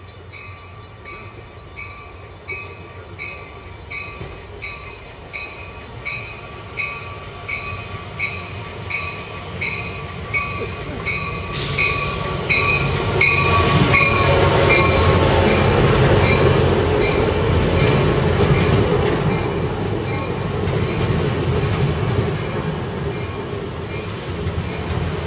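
Amtrak Pacific Surfliner passenger train pulling into the station. A bell rings steadily about twice a second as it approaches. About halfway the train's rumble and wheel noise swell loud as the cab car and bilevel coaches pass close by, then ease off a little as it slows.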